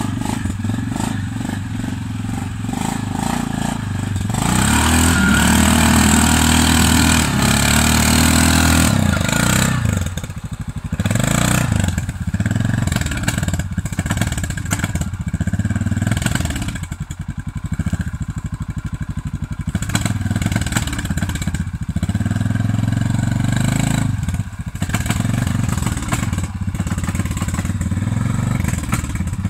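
Russian Mechanics RM 650-2 quad bike engine revving in repeated surges as it pushes through deep mud. The longest, loudest burst of throttle comes about four to nine seconds in, followed by shorter swells of revving.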